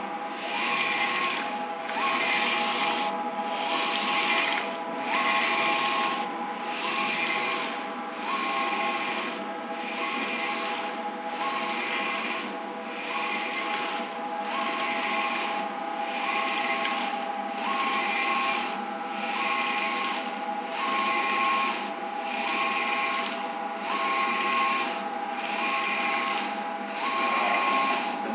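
Eco-solvent wide-format printer printing. The print-head carriage sweeps across the media about once a second, each pass a rushing swell that rises and drops away, over a steady machine hum.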